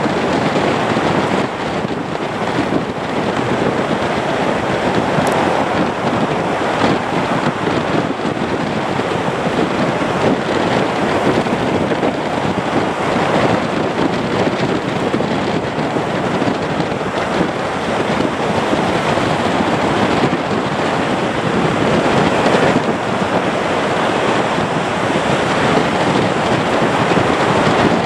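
Steady wind noise on the microphone mixed with the jet noise of a Boeing 737-800's CFM56 engines as it lands and rolls out on the runway.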